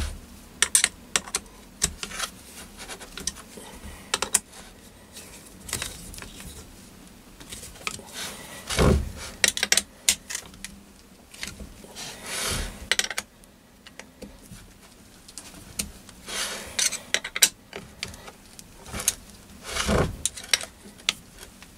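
Light metal clicks and clinks of an Allen key working stainless socket-head bolts into a lathe chuck's backplate by hand, with hex keys and loose bolts handled on a wooden board. A few duller knocks stand out: about nine seconds in, around twelve and a half seconds, and near the end.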